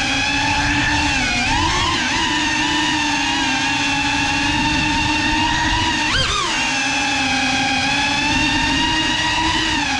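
GEPRC Cinelog 35 cinewhoop's brushless motors and ducted propellers whining steadily in flight, the pitch dipping and wavering about one and a half to two seconds in and jumping sharply up and back about six seconds in as the throttle is punched.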